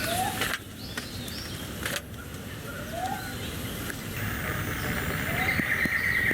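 Outdoor nature ambience: a short rising call repeats about every two and a half seconds. A steady, buzzing high drone comes in about four seconds in.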